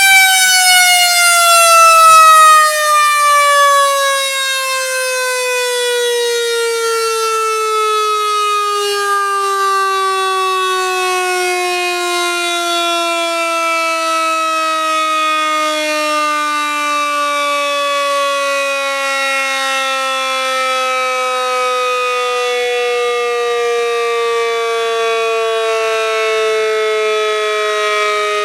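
Federal Signal C5 electromechanical siren winding down: one long wail whose pitch sinks slowly and steadily as the rotor coasts, a little quieter after the first few seconds.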